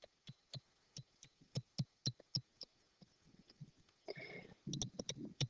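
Faint, irregular taps and clicks of a stylus on a tablet screen while writing, a few each second.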